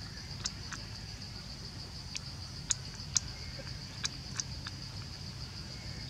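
Baby monkey suckling from a baby bottle's nipple: a scattering of small, sharp sucking clicks, irregularly spaced, over a steady high-pitched drone.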